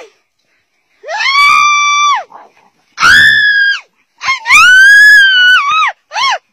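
Shrill, drawn-out screaming cries: three long ones, then two short ones near the end.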